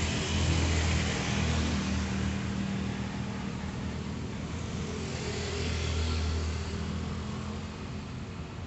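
Low, steady engine rumble of road traffic with a hiss above it, swelling about a second in and again around six seconds in, as vehicles pass.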